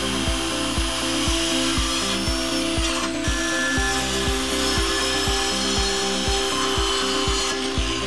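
Craftsman circular saw running and cutting through a wooden board, with a short dip about three seconds in. Background music with a steady beat plays underneath.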